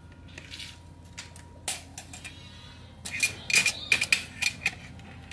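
Tape measure being handled against a metal curtain track: a quick run of about seven sharp metallic clicks and taps, each with a short ring, starting a little past halfway and lasting under two seconds, after a few fainter clicks.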